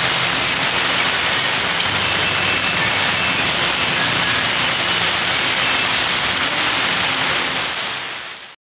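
Steady rain, an even noise that stops abruptly near the end.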